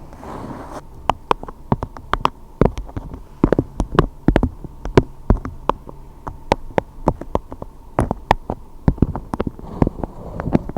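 Irregular sharp clicks and taps, a few a second, over a low steady hum.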